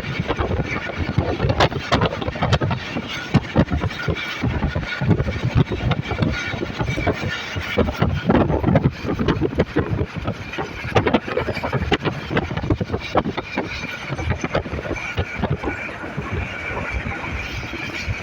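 Passenger train running at speed, its wheels clattering and knocking on the track in a dense, irregular rattle over a steady rushing noise.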